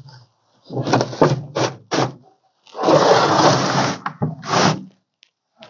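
Old carpet and jute padding being torn up and dragged off a truck cab's floor in several rough ripping pulls, the longest lasting over a second about three seconds in.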